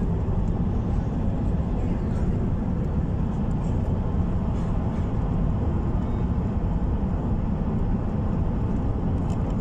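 Steady low rumble of a moving vehicle under way, engine and travel noise running evenly without change.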